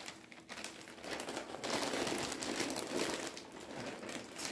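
Plastic bag of potting mix crinkling and rustling as soil is poured out of it, loudest for a couple of seconds in the middle.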